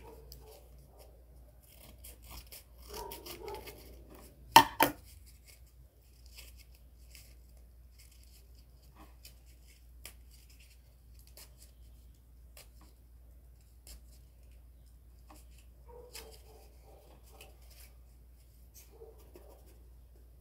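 Scissors cutting cardboard and cardboard pieces being handled at a table: scattered snips, rustles and small taps, with two sharp loud clicks close together about four and a half seconds in.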